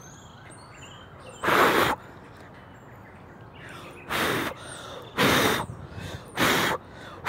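Short, hard puffs of breath blown at a dandelion seed head right beside the microphone, each one a brief rush of wind noise: one about a second and a half in, then three more about a second apart near the end. Birds chirp faintly in the background.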